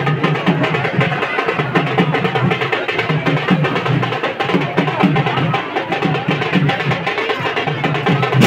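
Drums beating a steady rhythm over the chatter of a large crowd.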